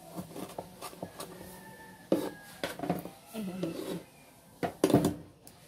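Kitchen knife chopping small tomatoes on a plastic cutting board: irregular knocks of the blade striking the board, the loudest two just before the end.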